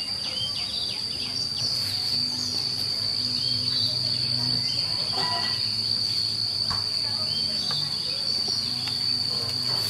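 Steady high-pitched insect trill, with a low hum underneath that comes and goes.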